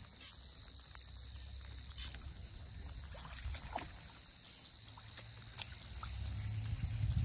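Steady high-pitched drone of insects, with a low rumble underneath that grows louder near the end and scattered faint ticks and soft water sounds.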